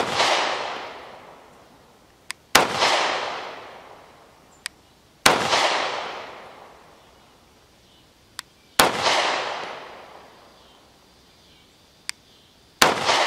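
FN Reflex 9mm micro-compact pistol firing 115-grain FMJ rounds: five shots in slow, deliberate fire, about three seconds apart. Each report trails off over about two seconds, and a faint click comes shortly before each of the last four shots.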